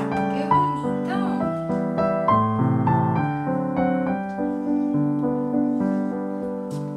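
Background piano music: a slow melody of held notes over a steady accompaniment.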